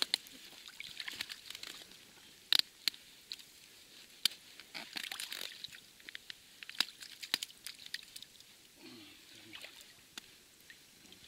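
Water sloshing and trickling in a hole cut through the ice as a fyke net is worked by hand in it, with several sharp clicks and knocks between the splashes.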